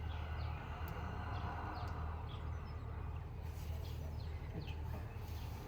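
Birds chirping in the background, short high falling chirps scattered through, over a steady low hum; a soft rushing sound fades out about three seconds in.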